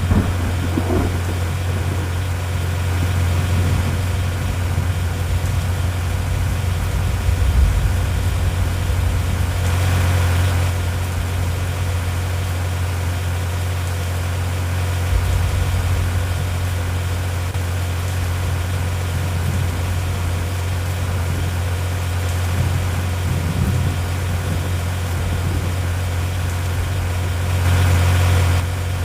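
Steady low hum of a vehicle engine running, with brief swells of rushing noise about ten seconds in and again near the end.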